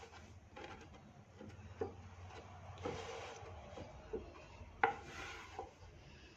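Hands smoothing and tucking a cotton cloth over a wooden pat: faint rubbing and rustling of fabric on wood, with a few light taps, the sharpest a little before five seconds in.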